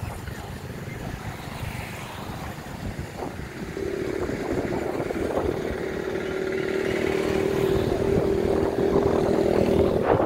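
Freight train hauled by an electric locomotive running in, with a low rumble and wind on the microphone. A steady hum sets in about four seconds in and holds while the sound slowly grows louder as the train draws near.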